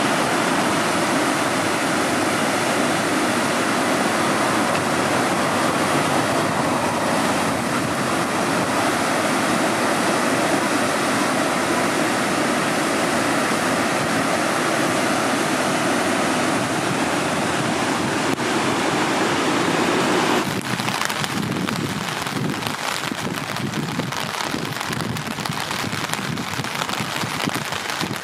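Steady rushing of the flood-swollen Takahashi River, churning with white water after heavy rain. About two-thirds of the way through it cuts to a thinner, gusty noise of wind on the microphone.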